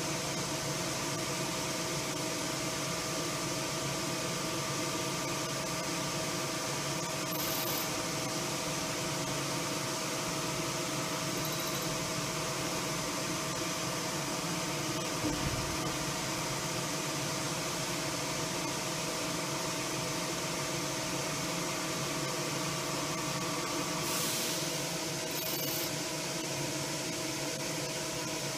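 CNC machining centre running a tool-setter cycle: a steady mechanical hum with a constant whine, a couple of short high hisses and a brief low thump about halfway through.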